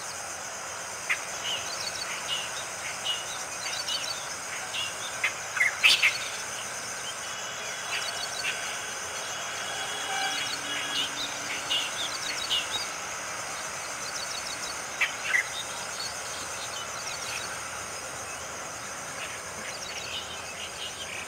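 Steady, high insect drone, typical of crickets or cicadas, with many short bird chirps and calls scattered through it. A loud cluster of chirps comes about six seconds in, and another near fifteen seconds.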